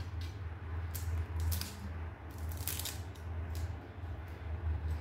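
Dry garlic skins crackling and rustling as cloves are peeled by hand, in several short, scratchy crackles, over a steady low hum.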